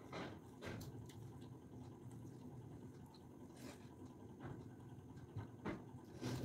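Faint eating sounds: fingers mixing rice on a steel plate and chewing, with a few short clicks and crunches. The sharpest one comes near the end.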